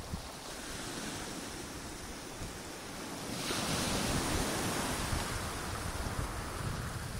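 Sea waves washing on the shore, with one wave breaking and surging louder about halfway through. Low wind buffeting on the phone's microphone underneath.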